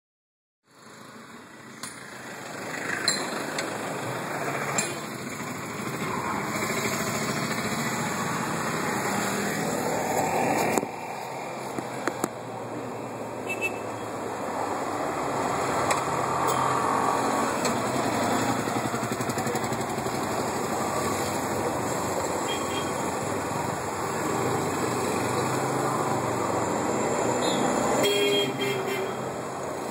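Street traffic of motorcycles, auto-rickshaws and cars running past, with a few short horn toots. Near the end a motorcycle pulls away close by.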